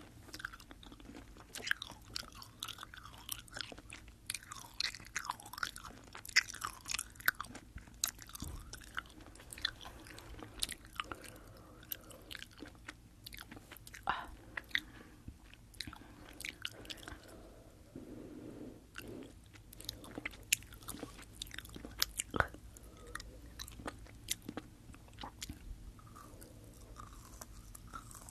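Close-up chewing of sour sugar-coated Fini gummy candies picked up on a binaural microphone: a steady run of many small, irregular mouth clicks and smacks.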